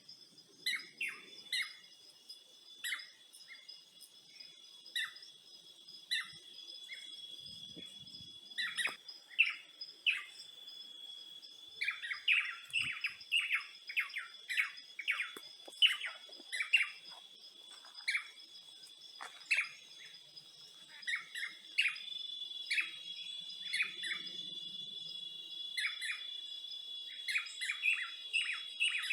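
Many birds chirping in short, sharp calls, densest in the middle, over a steady high-pitched insect drone.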